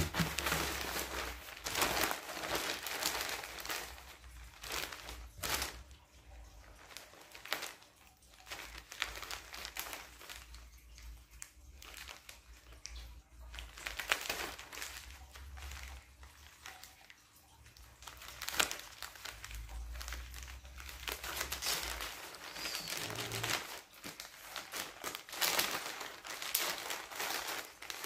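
Plastic mailer bag crinkling and rustling as it is handled and cut open with scissors; the noise comes and goes, with quieter spells between handlings.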